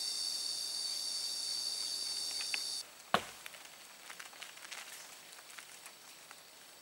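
Insects chirring steadily in a high-pitched chorus of several tones at once. The chorus cuts off abruptly about three seconds in. A single sharp knock follows, then faint scattered clicks and rustling.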